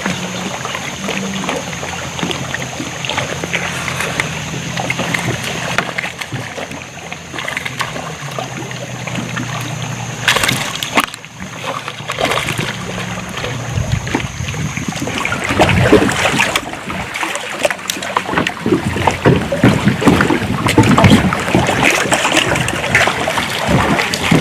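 Water sloshing and splashing against a fishing kayak, with a steady low hum under the first half. In the second half it turns busier, with many knocks and splashes.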